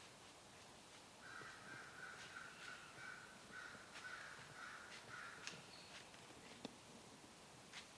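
Faint bird calling: a run of short repeated calls at one pitch, about three a second, from about a second in until past the middle, with a few faint ticks later on.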